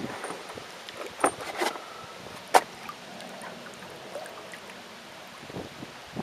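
A long pole being handled in a small boat, with a few sharp knocks and clunks of the pole against the boat. The loudest knock comes about two and a half seconds in.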